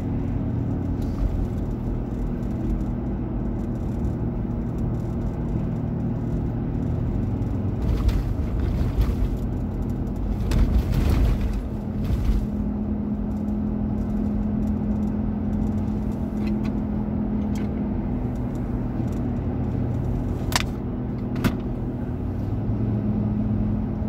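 Car cabin noise while driving: a steady engine and road drone, swelling to a louder rumble for a few seconds about eight to twelve seconds in, with two brief sharp sounds near the end.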